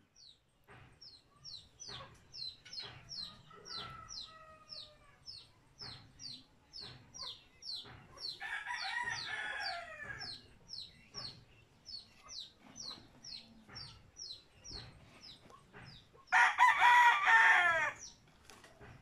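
Roosters crowing three times: faintly about four seconds in, louder about eight seconds in, and loudest near the end, each crow lasting about a second and a half. Under them, short high chirps repeat about twice a second.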